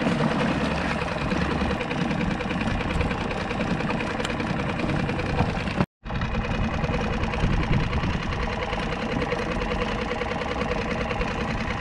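Small outboard motor on a solo skiff idling steadily, cutting out for a split second about halfway through.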